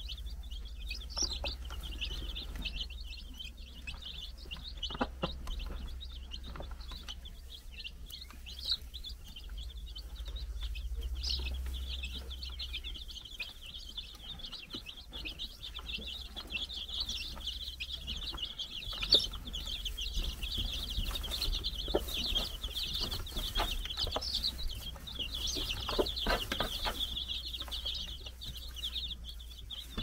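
A brood of four-day-old chicks peeping continuously, many high cheeps overlapping at once, with a few short soft knocks among them.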